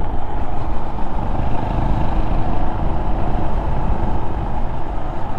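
Honda Monkey 125's single-cylinder four-stroke engine running steadily on the move, under a heavy low rumble of wind and road noise.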